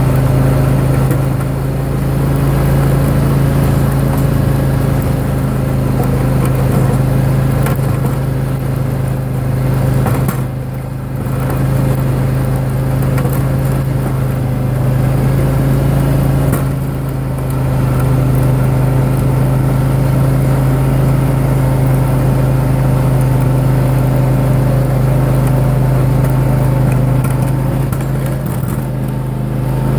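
John Deere X540 lawn tractor's V-twin engine running steadily under load while it plows snow, with a few brief dips in loudness, one about a third of the way in, one a little past the middle and one near the end.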